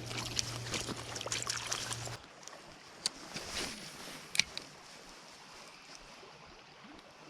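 Water splashing and sloshing close to the microphone for about two seconds, cutting off abruptly, then a creek running quietly with a few sharp clicks.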